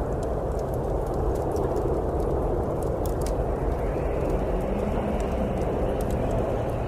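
Steady snowstorm wind with a wood fire crackling: scattered small pops and snaps over the wind's even rush.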